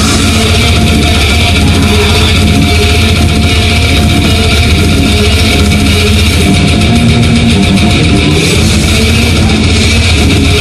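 Death metal band playing live and loud: distorted electric guitars over bass and drums.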